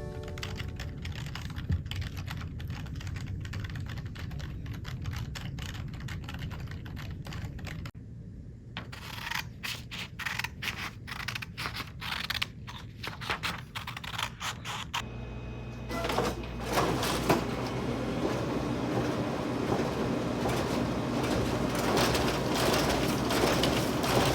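Close-miked computer keyboard typing: rapid key clicks that turn sparser and more separated about eight seconds in. From about fifteen seconds a steady rushing noise with a low hum takes over.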